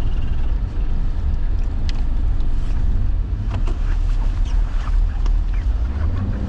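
A car's engine and running gear heard from inside the cabin: a steady deep rumble, with a few light clicks and rattles.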